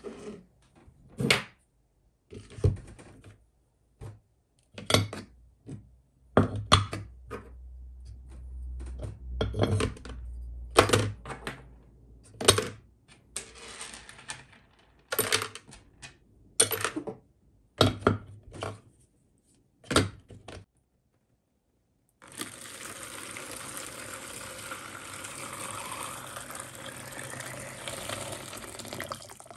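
Rusty steel drill press vise parts set one after another into a plastic bucket, a run of separate clunks and clinks. About 22 seconds in, water starts pouring steadily into the bucket, with a faint rising tone as it fills.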